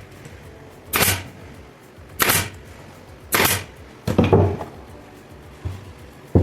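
Nail gun firing into wood as a box is assembled: about six sharp shots, roughly one a second, with a quick pair about four seconds in.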